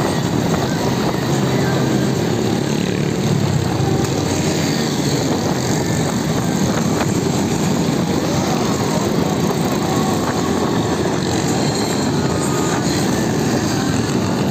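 Steady traffic noise dominated by many small motorcycles running together on a busy road.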